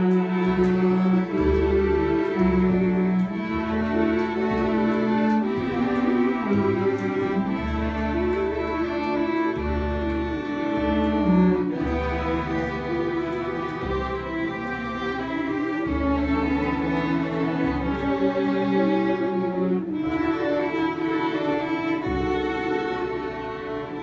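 A small string ensemble of violins, cello and double bass playing live. Held and moving melody lines sound over a bass line of long low notes, without pause.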